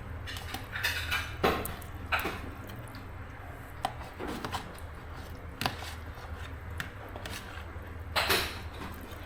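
Scattered clinks and knocks of kitchen utensils against pots and dishes, a second or more apart, with a longer scrape-like clatter near the end, over a steady low hum.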